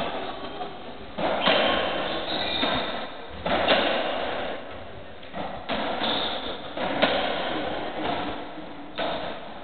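Racketball rally on a squash court: the ball is struck by the rackets and hits the walls about every one to two seconds. Each sharp hit is followed by a long echo in the enclosed court.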